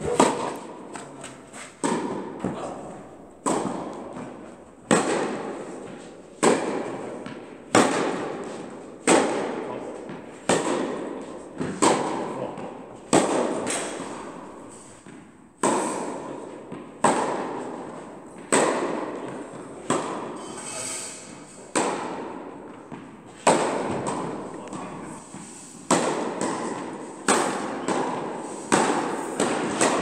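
Tennis balls struck by racquets in a baseline rally, about one hit every second and a half, each crack ringing on in the reverberant indoor tennis hall.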